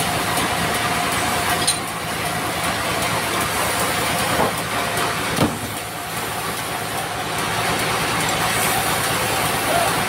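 Sawmill machinery running steadily, a noisy hum with a held whine over it, broken by a few short knocks, the loudest about five and a half seconds in.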